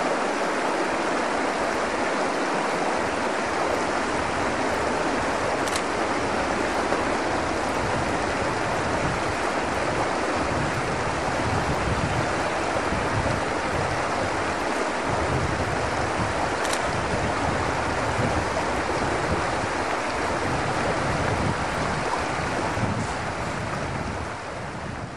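Steady rush of a shallow river running over gravel riffles, with the angler's legs standing in the current. The water sound fades out near the end.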